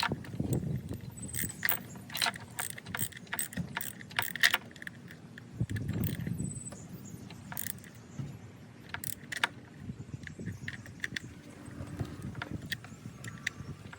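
Small metal parts and hand tools clinking and clicking, with a quick run of sharp taps in the first few seconds and a few more later.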